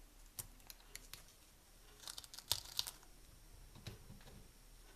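Faint crackling and scattered clicks of Pringles chip pieces being crumbled and pressed by hand onto a slice of toast, with a cluster of sharper crackles about two to three seconds in.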